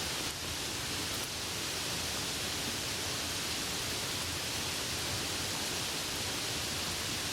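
Steady rain falling, an even hiss with no distinct drops or thunder.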